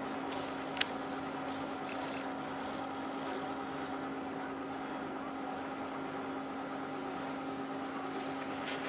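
Steady machine hum with a constant low tone, plus a faint click about a second in.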